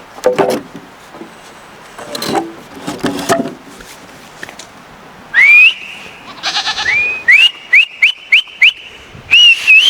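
A person whistling loudly to call farm goats. There is one rising whistle about five seconds in, then a quick run of short upward-swooping whistles, about three a second, and a longer wavering whistle near the end.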